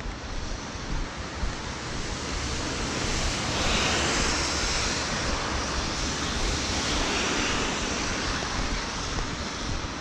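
Tyre hiss of traffic on a rain-wet city street, swelling about three seconds in and easing off near the end as vehicles pass, over steady rain noise.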